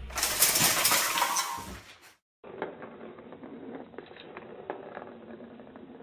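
A metal fireplace screen crashes down and clatters as a cat pulls at the stockings hung on it, the clatter fading over about two seconds. After a short gap, faint clicks and patter as a cat paws at a plastic circular ball-track toy.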